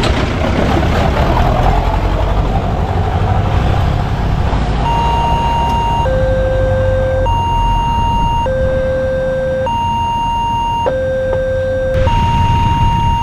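Road traffic rumbling past, then about five seconds in an electronic railway level-crossing warning starts: two steady tones, high and low, alternating about every 1.2 seconds.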